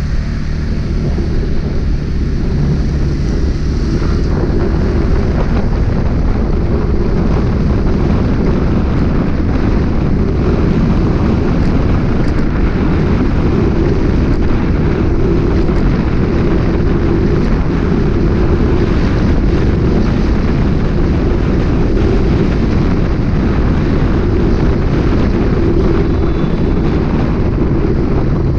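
Steady wind rush on the microphone mixed with engine and road noise from a motor vehicle riding through city traffic.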